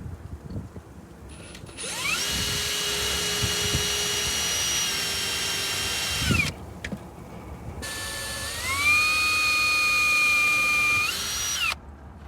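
Cordless power drill run in two bursts of about four seconds each, its motor whining at a steady pitch; the second burst speeds up twice before stopping.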